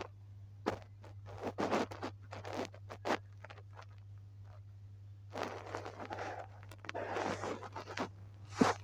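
Drawing strokes scratching across a surface: a string of short separate scratches, then about three seconds of dense, continuous scratching and rubbing in the second half, over a steady low electrical hum.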